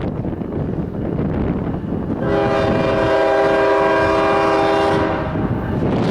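Diesel locomotive air horn sounding one long, steady blast of about three seconds, starting about two seconds in, over the rumbling noise of a moving freight train.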